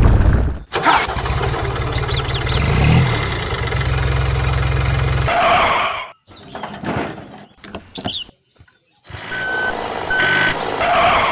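A vehicle engine starts about a second in, runs steadily for about four seconds and then cuts off. Scattered clicks follow, then two short beeps of one tone.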